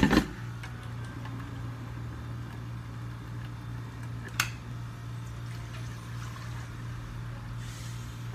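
Hard plastic blender jugs set down on a stone counter with a sharp clack, then a single click about four seconds in, over a steady low hum; faint pouring of liquid into the jugs.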